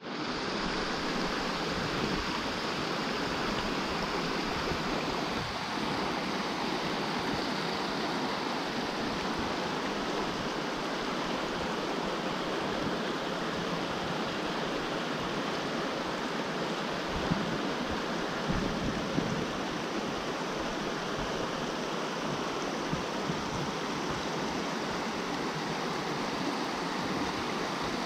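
Shallow rocky stream rushing steadily over stones, with a few brief bumps about two-thirds of the way through.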